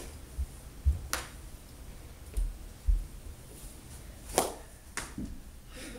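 Mini hockey sticks clicking sharply during knee hockey play: once about a second in and twice near the end, with a few dull low thumps in between.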